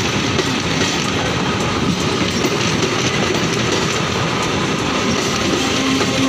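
Sealdah suburban electric local train (EMU) rolling past along the platform. It makes a loud, steady rumble, with faint repeated clicks from the wheels passing over the rail joints.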